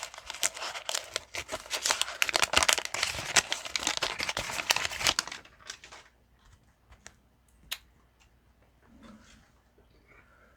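Wax-paper wrapper of a 1989 Fleer baseball card pack crinkling and tearing as it is handled, for about five seconds, then dropping away to a few faint clicks and taps.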